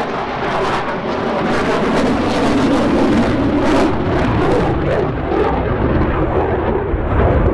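F-15J fighter's twin turbofan jet engines running in afterburner through a banking display turn: a loud, continuous jet rumble. Toward the end the hiss thins and the deep low rumble grows heavier.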